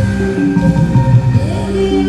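Upbeat music for aerobic exercise, with a steady driving beat and held melodic notes over it.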